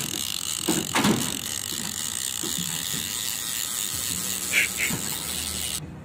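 Fishing reel's drag clicker buzzing steadily as a hooked shark strips line off the reel, cutting off sharply near the end.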